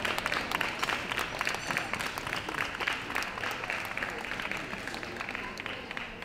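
Audience applauding with dense, steady clapping that eases off slightly toward the end.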